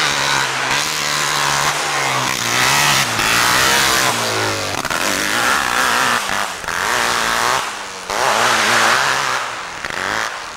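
Hillclimb racing motorcycle engine revving hard at full throttle up a steep dirt hill, its pitch sweeping up and down. It briefly drops about six and eight seconds in and fades near the end.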